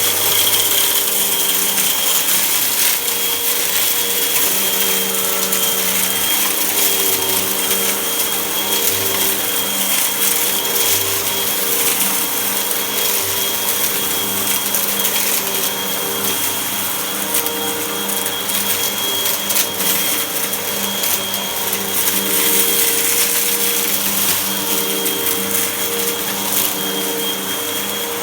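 Vacuum cleaner running steadily, with a high whine over its motor noise, while sucking up dirt. Frequent small clicks and crackles come through over the whole stretch.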